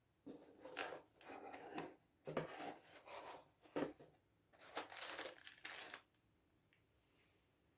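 Small metal parts of a table saw dial indicator being handled, with clinks and rattles in several bursts for about six seconds.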